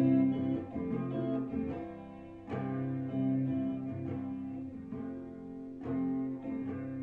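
Guitar playing alone between sung verses: slow strummed chords, a new one struck every second or two and left to ring.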